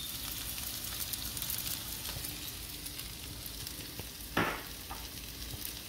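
Sliced green peppers and onions sizzling steadily in a nonstick frying pan, with a fine crackle. One short louder sound comes about four and a half seconds in.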